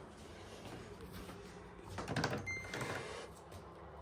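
Clicks of buttons being pressed on a Samsung washing machine's control panel, with a short electronic beep about two and a half seconds in.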